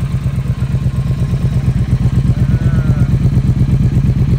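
Triumph Speed Twin 1200 parallel-twin engine idling steadily through a Zard 2-into-1 full-system exhaust, giving an even, deep run of exhaust pulses.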